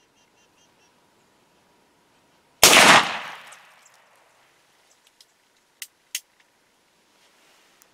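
A single loud gunshot a little under three seconds in, ringing away over about a second, followed by two sharp clicks a few seconds later.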